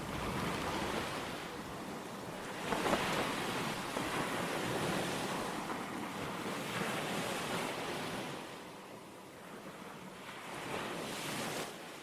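Sea waves washing in, in several slow swells, with some wind, dying away near the end.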